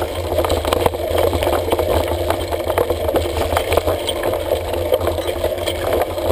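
Mountain bike rolling over a rough, dry dirt singletrack, heard through a handlebar-mounted action camera: a steady rumble and wind noise with a constant rattle of small knocks from the bike and camera mount over the bumps.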